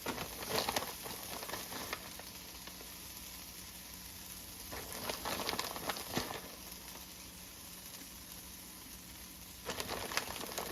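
Home fries frying in a pan with a steady faint sizzle. Three louder bursts of noise come at the start, about five seconds in and near the end, as shredded taco cheese is shaken onto the hot potatoes.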